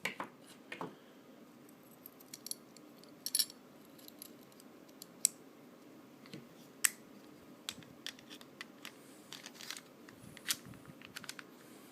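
Scattered sharp metallic clicks and taps, with quiet stretches between: small steel parts of a Ruger LCP pistol, its barrel and slide, being fitted back together.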